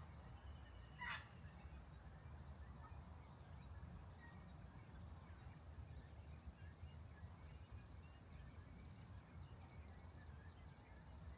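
Near silence: faint low outdoor rumble, broken about a second in by one short bird call, with a few faint chirps after it.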